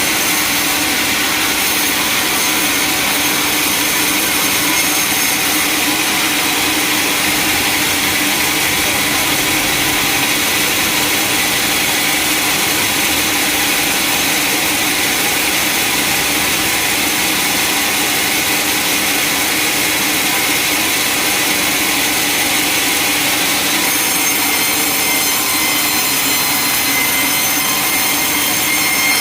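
Sawmill saw running steadily as it cuts through a long log.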